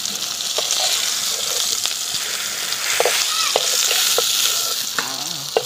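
Fried fish pieces sizzling in hot oil in an aluminium karai, with a metal spatula clicking against the pan several times as the fish is lifted out.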